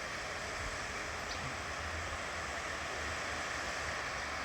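Waterfall in heavy winter flow: a steady rush of falling water.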